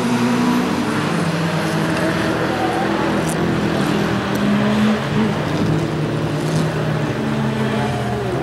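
Several bilcross race cars' engines running together, their pitches rising and falling as they race round the track.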